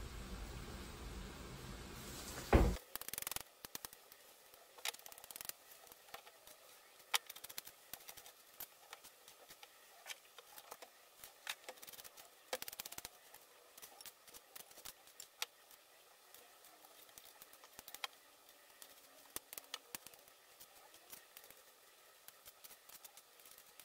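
Kitchen knife dicing tomato, onion and garlic on a cutting board: irregular light taps and clicks of the blade against the board. A low steady hum in the first couple of seconds ends with a single loud knock.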